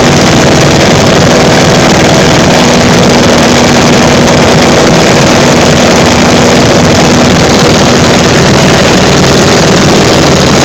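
Pietenpol Air Camper's engine and propeller running loud and steady, heard from the open front cockpit with wind rushing over the microphone.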